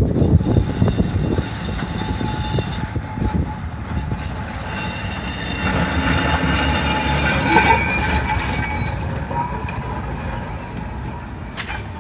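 Electric freight tram (Sydney tramway freight car 24s, built 1903) running past over the rails, with a low rumble and a high whine from its wheels and traction motors. It is loudest as it passes, about two-thirds of the way through, then fades.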